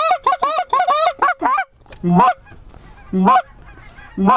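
Specklebelly (white-fronted goose) calls: a loud, quick run of about eight yelping two-note calls in the first second and a half, then three single calls spaced about a second apart, with fainter calling of the flock underneath.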